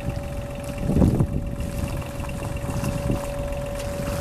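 1985 Kubota KH35 mini excavator's engine idling steadily, with a constant high whine over the low running. Wind buffets the microphone about a second in.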